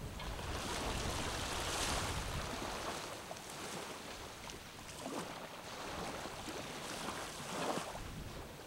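Small waves lapping softly on a sandy beach, a gentle wash that swells and eases every few seconds.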